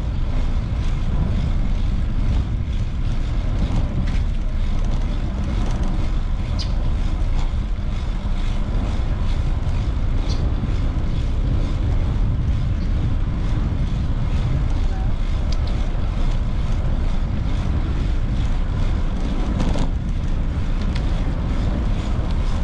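Steady low wind rumble on the microphone of a bicycle in motion, with street noise behind it and a few faint clicks.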